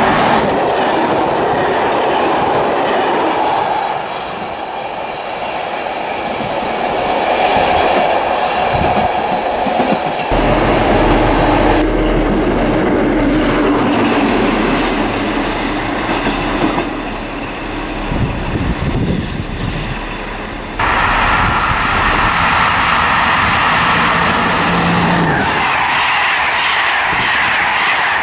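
Trains passing close by in several takes cut together, the sound changing abruptly at each cut: an electric locomotive rolling past, then a diesel locomotive whose low, steady engine note dominates the middle, then passenger coaches rolling past with wheel clatter near the end.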